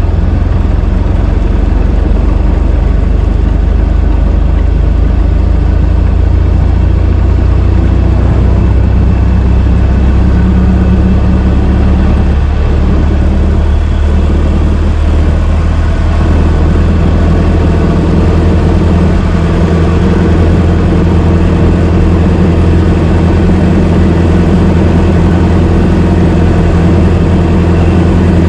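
Old car engine running steadily with a low, even hum, its tone shifting slightly a little past the middle.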